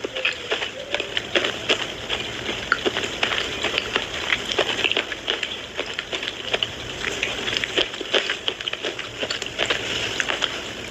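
A person chewing a Minakshi slate pencil close to the microphone: dense, irregular crunching and crackling clicks as the brittle pencil is bitten and ground between the teeth.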